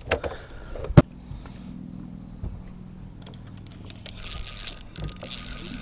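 A sharp knock about a second in, then a low steady hum under small scattered clicks and rattles.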